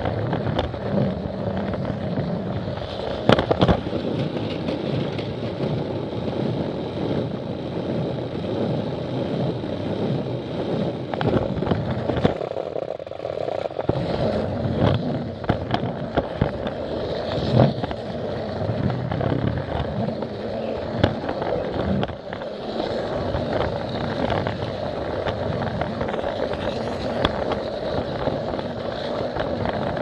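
A Plarail toy train running on plastic track: its small motor and plastic wheels make a steady rattling rumble, with occasional sharp clicks.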